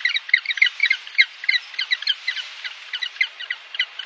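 Penguin calls: a rapid run of short, high, squeaky calls, about six or seven a second, growing sparser and fainter toward the end.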